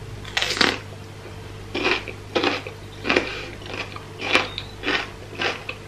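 A bite into a raw red bell pepper piece spread with cream cheese, about half a second in, followed by crisp chewing crunches at a steady pace.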